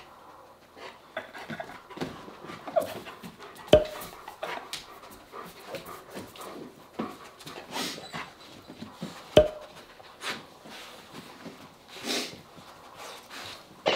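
German Shepherds panting and sniffing at close range, with two sharp clicks, about four and nine and a half seconds in, as the loudest sounds.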